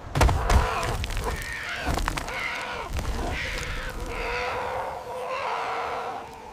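Harsh, raspy squawking of a rooster, drawn out over several seconds, after a few low thumps in the first half-second.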